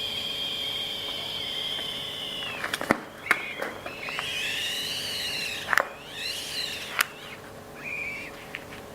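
Air squealing out through a stretched balloon neck: a long, high, steady whine that dips and stops about three seconds in. Several sharp clicks follow, along with shorter squeals that rise and fall in pitch.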